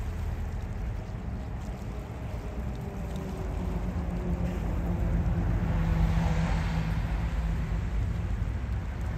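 Outdoor traffic rumble: a vehicle's engine hum rises and passes, loudest about six seconds in, over a steady low background rumble.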